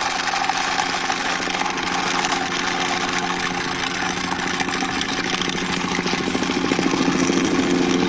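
Toy army helicopter's friction gear mechanism whirring with a rapid ticking as it is pushed along by hand, growing slightly louder toward the end.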